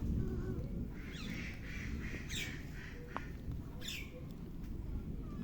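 A few short, high bird calls that fall steeply in pitch, about a second in and again near four seconds, over a steady low rumble.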